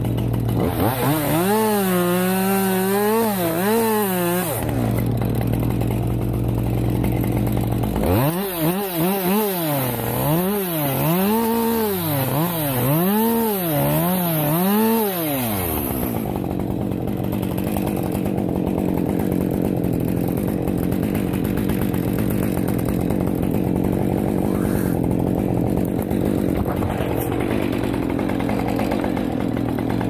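Chainsaw engine idling, then revved up and down in quick even swells, about one or two a second, in two spells of several seconds. Between the spells and after them it settles back to a steady run.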